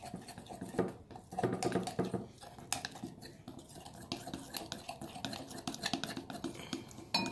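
A utensil stirring a thick cornstarch and dish-soap mixture in a bowl, with irregular clicks and scrapes against the bowl.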